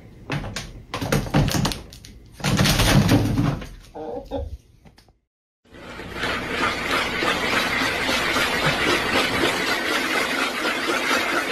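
A chicken's calls and movements in short, irregular bursts. After a brief break, a steady, even rattling hiss, which fits a ball rolling round inside a blue plastic ring cat toy.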